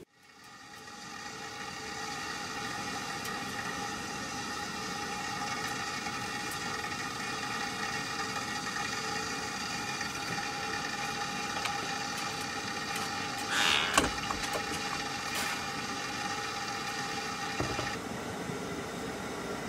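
Propane camp stove burner running under a stovetop kettle as the water heats: a steady hiss, with a brief louder rush about fourteen seconds in.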